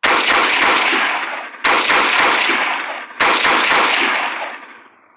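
Rifle gunfire: three rapid strings of several shots each, about a second and a half apart, each string trailing off in a long echo.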